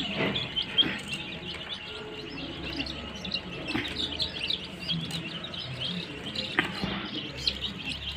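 A group of young chicks peeping continuously, many short high cheeps overlapping, with a few brief knocks.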